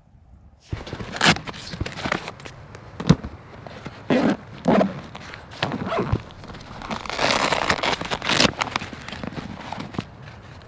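Hands working a backpack's side pouch: fabric rustling, knocks and clicks, then a longer rasping stretch around seven to eight seconds in as the pouch is pulled open and its contents drawn out.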